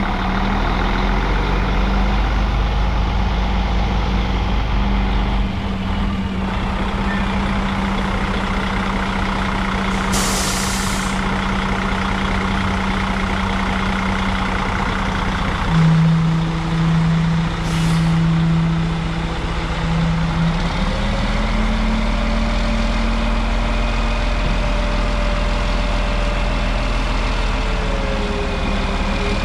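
2007 Sterling LT9513 quad-axle dump truck's diesel engine running, with two short hisses of air about ten and eighteen seconds in. From about twenty-one seconds the engine runs harder and a steady whine joins it as the dump body is raised.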